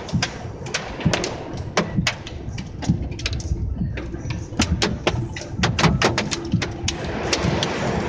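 Hailstones striking a car's roof and windshield, heard from inside the cabin: sharp, irregular knocks several times a second over a steady hiss of heavy rain and wind.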